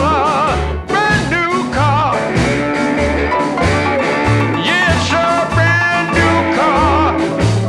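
Background music: a song with a singing voice and instruments over a steady, stepping bass line.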